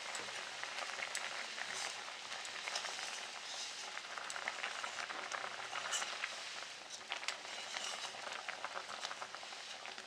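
Thin fish curry bubbling at a simmer in a steel kadai, with many small pops, and a steel slotted spoon stirring through it now and then.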